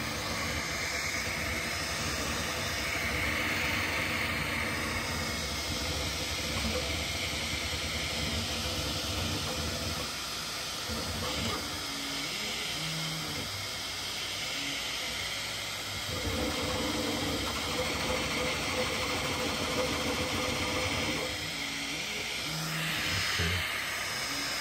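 Bambu Lab P1P 3D printer running a print at speed: a steady fan hiss with the stepper motors whirring in low tones that change pitch every few seconds as the print head moves.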